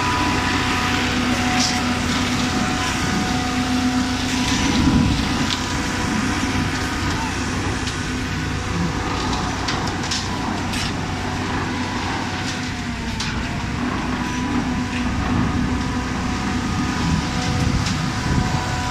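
Aimix 750-liter concrete mixer pump running steadily, a constant machine drone with a steady hum, broken by scattered short knocks and clatter.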